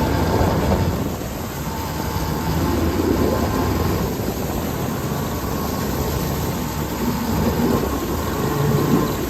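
Jet ski engine running, with a dense rush of noise over its low hum.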